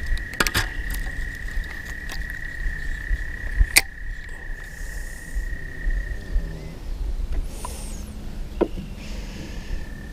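A frog's long, steady high-pitched trill, which stops about six seconds in and starts again near the end. A few sharp knocks, the loudest just before four seconds in, and some brief hissing swishes sound over it.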